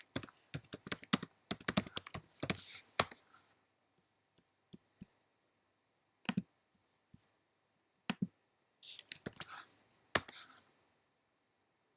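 Irregular clusters of short, sharp clicks and crackles, dense for the first three seconds, then scattered single clicks and another burst of clicks about nine to ten seconds in. They are the alert sounds of a Node-RED flow played as tweets arrive.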